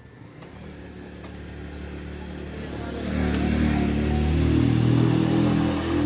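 A motor vehicle's engine approaching and passing close by, growing steadily louder for about three seconds, then holding loud and starting to fade near the end.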